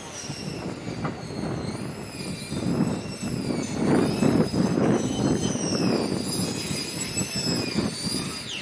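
A vehicle passing close by: a rumble that swells to a peak about halfway through and then eases, under a high, wavering squeal that stops just before the end.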